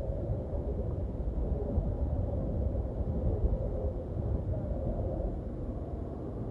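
A low, steady rumbling drone with a faint hum.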